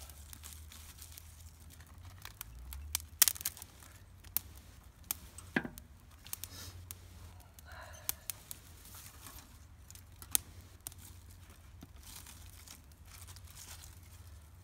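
Small twigs snapping as they are broken by hand and laid on a freshly lit grass-and-twig tinder fire, with dry grass crinkling under them. Irregular sharp snaps, the loudest cluster about three seconds in.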